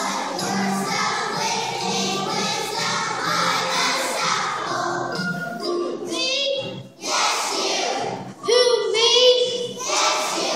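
Children's choir singing with musical accompaniment; about halfway through the sound breaks into louder, separate sung phrases with short gaps between them.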